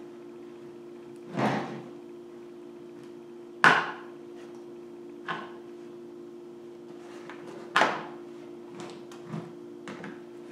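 Multi-tool knife blade cutting and prying through a plastic litter-pail lid: four loud, sharp cracks of the plastic spaced a second or two apart, the loudest about three and a half seconds in, then several smaller snaps near the end, over a steady low hum.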